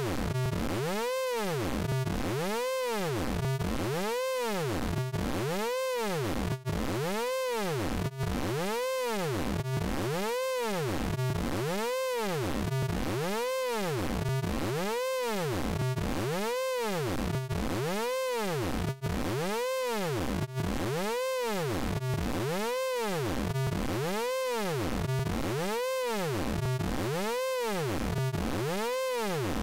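Synthesized sound effect from the Orange Vocoder plugin: a buzzy pitched tone swept up and down over and over, a little more than once a second, at an even, unbroken level.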